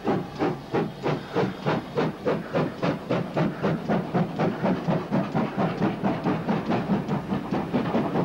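Steam locomotive exhaust from a passenger train being banked up the 1 in 37.7 Lickey incline, a tank engine pushing at the rear. Its rhythmic chuffing comes at about two to three beats a second, with the beats running closer together near the end, the sound of the engines working hard on the steep climb.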